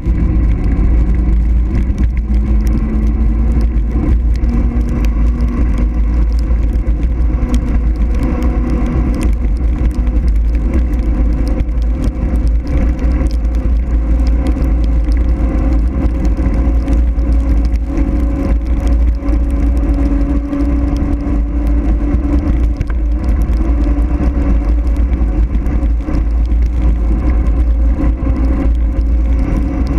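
Wind buffeting the microphone on a fast mountain-bike descent, under a steady hum from the tyres rolling on asphalt that slowly rises in pitch as speed builds.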